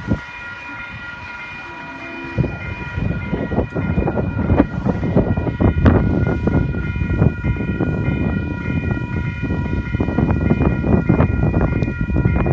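DX-class diesel-electric locomotives hauling a train past close by. Engine rumble and the knocking of wheels over the rails build up about two seconds in. A steady high chord holds throughout.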